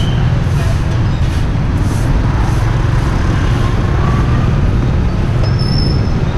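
Street traffic of motorbike scooters passing close by, a steady low rumble with engine noise, and a brief high tone near the end.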